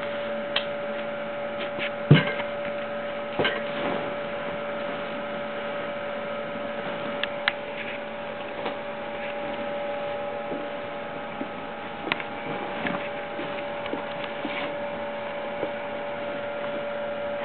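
Steady electrical hum with scattered light clicks and knocks, the loudest about two seconds in.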